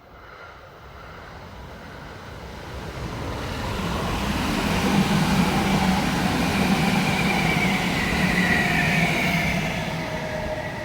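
Kintetsu Kyoto Line electric train passing by: its running noise swells as it approaches, is loudest through the middle and eases off near the end. A motor whine rides on the wheel rumble and drops slightly in pitch as the train goes past.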